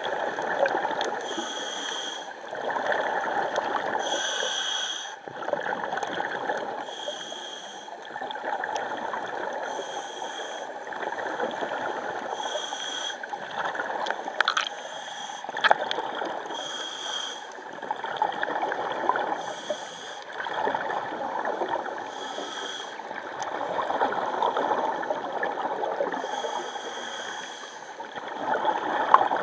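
A scuba diver breathing through a regulator underwater: a short hiss from the demand valve on each breath in, about every two to three seconds, with bubbling exhaust between breaths.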